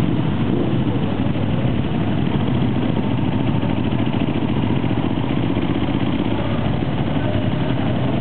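Several Ducati motorcycles running steadily at low parade speed, a constant engine rumble with no revving.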